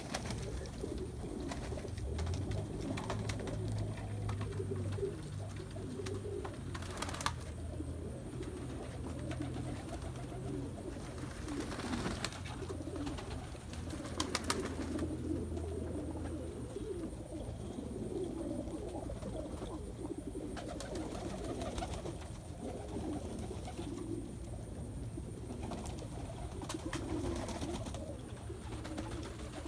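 Barless pouter pigeons cooing continuously in a low, warbling murmur. A few sharp wing claps come about halfway through as one bird flaps.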